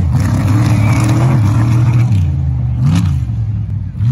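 Off-road race truck's engine running at a steady high note, with a brief rev about three seconds in.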